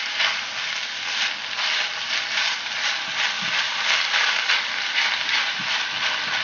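Minced pork and vegetable sofrito frying in a nonstick pan, sizzling steadily as the meat browns. A silicone spatula stirs it in repeated quick strokes, scraping and rustling against the pan.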